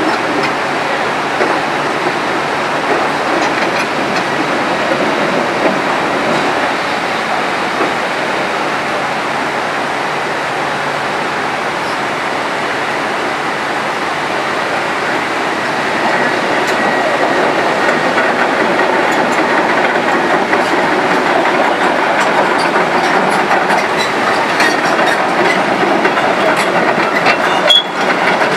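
Flooded mountain stream rushing fast over boulders, a steady dense wash of water noise that grows a little louder about halfway through, with a few sharp knocks near the end.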